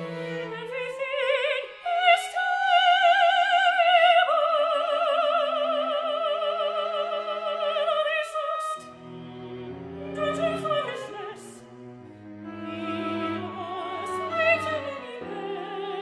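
Opera with orchestra: a soprano holds a long high note with wide vibrato, and about nine seconds in the lower strings of the orchestra come forward while the voice returns in shorter phrases.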